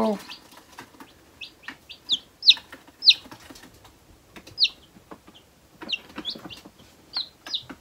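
Newly hatched chicks peeping: short, high chirps that each slide down in pitch, coming irregularly, the loudest about two and a half, three and four and a half seconds in.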